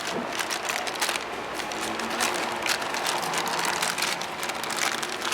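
Irregular clicks and rustling of packaging being handled as a new power steering pump is taken out of its box.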